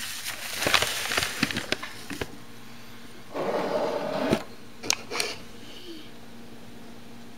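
Gerbils scrabbling in shredded-paper bedding: crackly rustling for about two seconds, a denser rustle around the middle, then a few sharp clicks.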